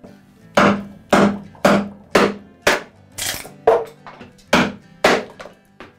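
Wooden joiner's mallet striking a chisel, chopping into the wooden bench top: a steady run of sharp knocks, about two a second, with lighter taps in between.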